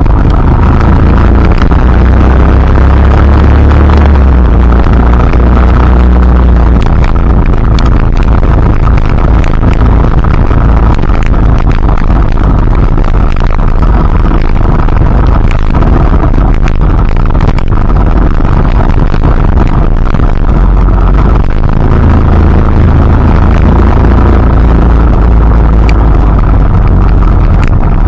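Steady rain: a dense, loud hiss with scattered sharp drip ticks, over a deep rumble that swells a couple of seconds in and again near the end.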